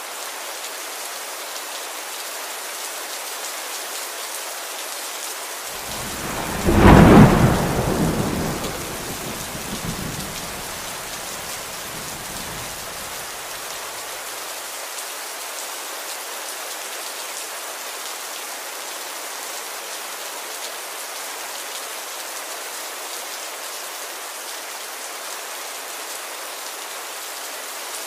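Steady rain falling, with one thunderclap about six seconds in whose rumble dies away over the next several seconds.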